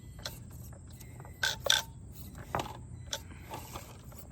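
Traxxas TRX-4M Hightrail mini RC crawler's drivetrain running with a steady gear hum, while a few sharp plastic clacks and knocks come as it climbs over rocks, the loudest pair about a second and a half in.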